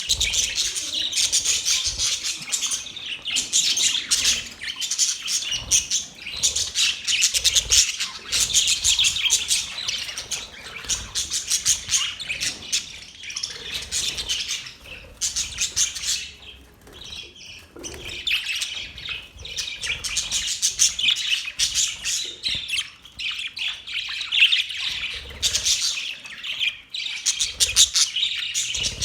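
Budgerigars chirping and chattering in a fast, continuous warble, easing briefly a little past the middle before picking up again.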